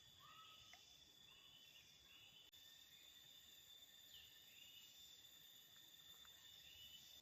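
Faint outdoor ambience: a steady high-pitched insect drone, with short whistled bird notes coming a few at a time.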